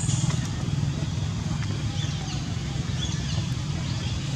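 Steady low rumble throughout, with a few faint, high, rising-and-falling squeaks in the second half.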